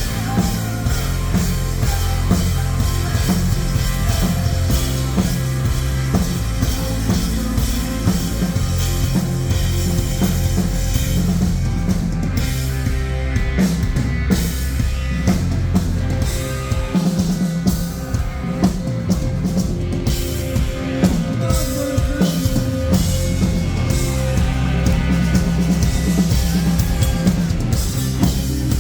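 A rock band playing live, with a full drum kit pounding steadily under heavy bass and guitars.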